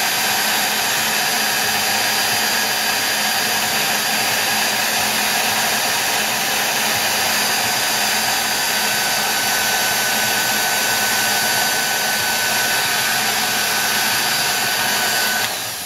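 Heat gun blowing a steady rush of hot air with a faint steady whine, melting the beeswax coating on a restuffed paper capacitor; it is switched off just before the end and winds down.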